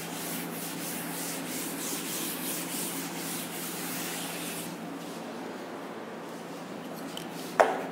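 Cloth duster wiping chalk off a chalkboard in quick repeated strokes, fading out about five seconds in; a single sharp tap comes near the end.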